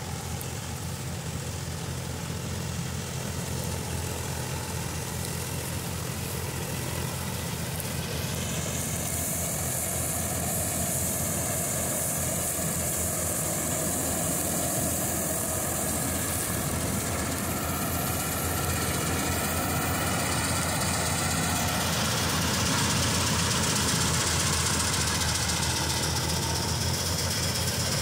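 A John Deere 5310 tractor's three-cylinder diesel engine runs steadily under load while it drives a tractor-mounted combine harvester cutting and threshing wheat. The machine grows steadily louder as it comes closer, and a high hiss with a whine joins the engine sound from about eight seconds in until about twenty-two seconds.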